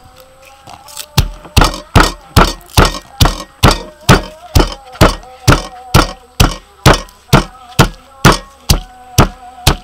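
Stone pestle pounding garlic cloves and red chilies in a stone mortar: steady, evenly spaced thuds a little over two a second, starting about a second in.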